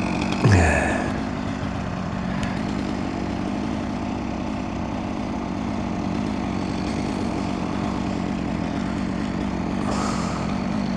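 A chainsaw's revs drop sharply about half a second in, over a steady engine drone that runs on throughout.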